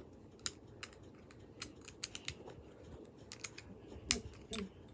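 Plastic Lego bricks and tiles clicking and clacking as they are handled: a string of irregular sharp clicks, the loudest a little past four seconds in.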